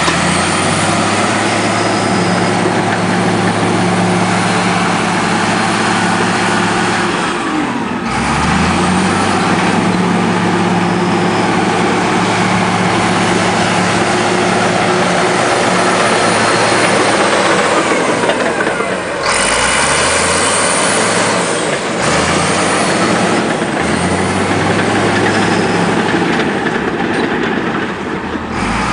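Komatsu D83 crawler bulldozer's diesel engine running under load, its pitch dropping and picking up again several times as the machine is worked.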